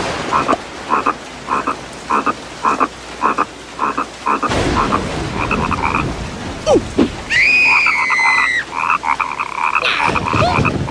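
Cartoon frog croaking in a quick regular series, about two croaks a second, broken in the middle by a longer, higher cry from a cartoon character.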